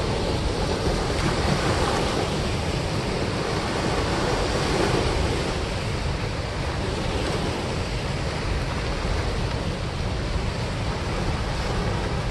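Steady rush of turbulent white water pouring out below a dam spillway, an even unbroken noise.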